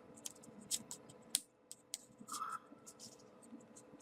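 Faint, sparse clicks and crinkles of small folded paper pieces being handled and slotted into a 3D origami model.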